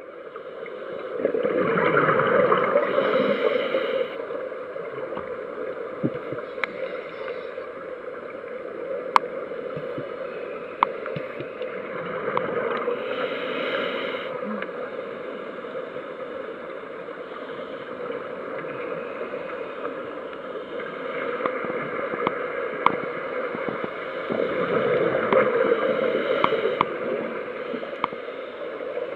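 Underwater sound of a scuba dive: a steady muffled rush, with swells of bubbling from the divers' exhaled air rising every several seconds.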